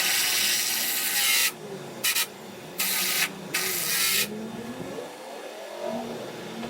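Chainsaw engine of an Alaskan sawmill running, with four loud bursts of high hiss in the first four seconds, then its pitch gliding up and down.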